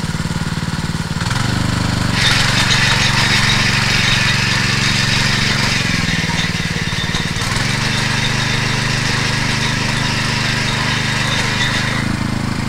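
Stihl motor hoe's small engine running under load, stepping up in pitch about a second in. From about two seconds in, a loud gritty hiss joins it as the rotating tines churn dry, dusty soil, and it eases off near the end.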